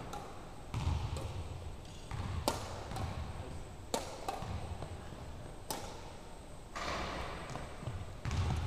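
Badminton rally: rackets striking a shuttlecock with sharp, echoing smacks about every second and a half, over footfalls on a hardwood court.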